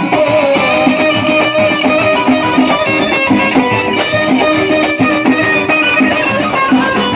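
Moroccan chaabi music played live: a violin held upright on the knee carries the melody over keyboard and a hand drum keeping a steady beat.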